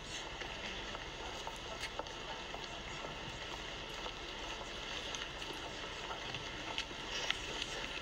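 Steady outdoor street background: an even hiss with a few faint clicks and taps.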